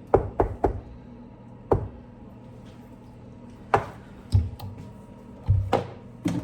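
Scattered knocks and thuds: a quick run of three sharp knocks near the start, single knocks later, and two heavier low thumps in the second half.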